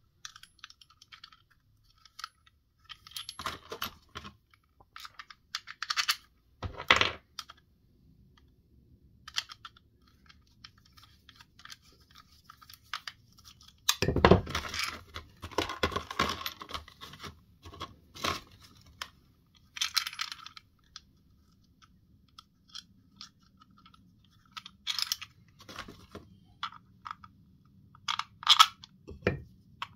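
Irregular clicks, clinks and knocks of small hard parts being handled while a Spinlock XA rope clutch is worked on, with a denser stretch of clattering about halfway through. A faint low hum sits underneath in the second half.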